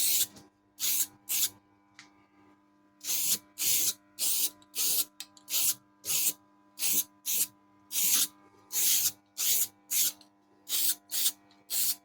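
Aerosol can of etch primer spraying in short squirts, about twenty brief hisses with a pause between the first few and the rest, covering bare welded metal against rust.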